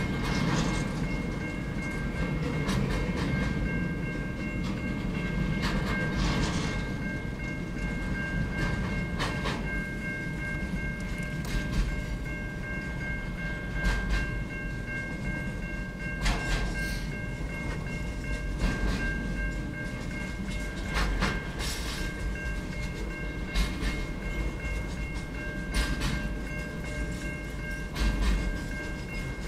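Double-stacked container wagons of a long freight train rolling past: a steady low rumble with irregular sharp clacks from the wheels on the rails, and a steady high whine held throughout.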